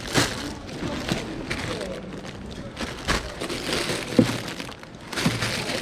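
Clear plastic bags of small toys crinkling as they are picked up and handled, in several short rustles.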